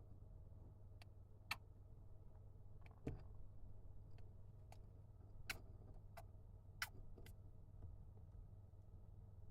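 A hamster sneezing when excited: a handful of tiny, sharp sneezes, irregularly spaced, with the strongest about a second and a half in and a quick cluster a little past halfway.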